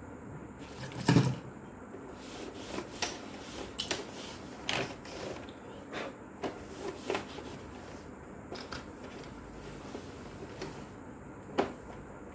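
Electric typewriter mechanism clicking and clacking at irregular intervals, with a loud clack about a second in, a run of lighter clicks after it, and another sharp clack near the end.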